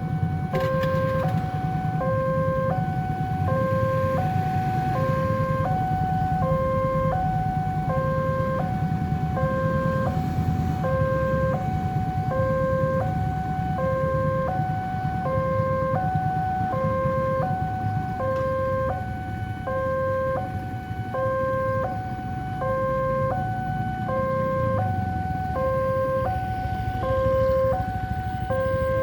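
Railway level-crossing warning alarm: an electronic two-tone signal alternating steadily between a lower and a higher note, about one full cycle a second, over a steady low rumble.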